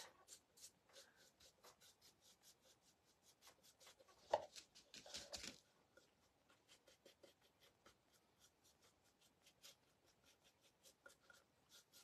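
Faint, scratchy strokes of a paintbrush dry-brushing paint onto a paper mache pot, quick and even at about five strokes a second for the first half, with a louder knock about four seconds in.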